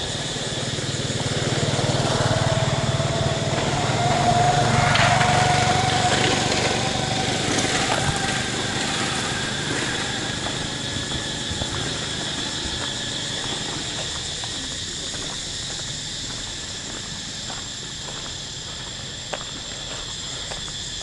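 A small engine running, growing louder over the first few seconds and then fading away, over a steady high hum.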